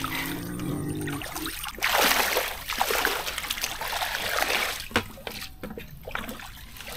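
Water splashing and trickling in irregular surges in a shallow ditch, loudest about two seconds in, with a short knock near the end.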